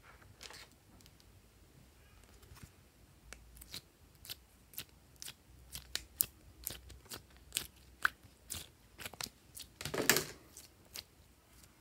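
Purple slime being pried out of a plastic ice-cube tray and squeezed by hand: a run of sharp clicks and pops, about two a second, starting a few seconds in. The loudest, longest burst comes about ten seconds in, as a fistful is squeezed.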